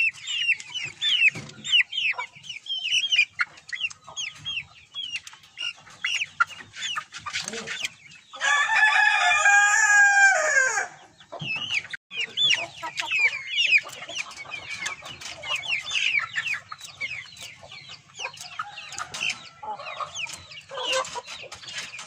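Caged young fancy-breed chickens cheeping and clucking throughout, with short high calls over one another. About eight seconds in, a rooster crows once, a long call of about two and a half seconds that is the loudest sound.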